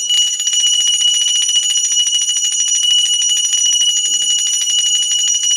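Hand-held puja bell (ghanti) rung rapidly and without pause during worship, a loud, steady high-pitched ringing.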